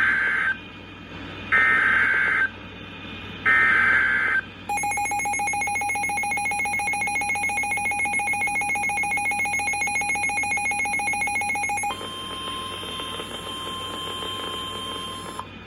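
NOAA Weather Radio Emergency Alert System tones opening a tornado warning. First come three short screeching SAME data header bursts, about a second apart. Then an electronic alert beep pulses rapidly for about seven seconds, and the steady single-pitch weather radio warning alarm tone sounds for about three and a half seconds.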